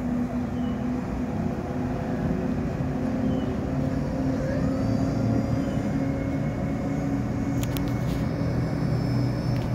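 Twin outboard motors of a Monterey cruiser running at speed, a steady drone that grows a little louder as the boat comes closer, with the hiss of its wake. A few short clicks about eight seconds in.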